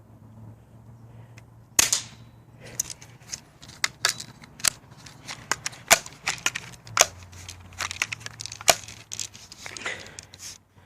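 BB gun being fired again and again: an irregular string of sharp snaps beginning about two seconds in and running on for about nine seconds, with a low steady hum underneath.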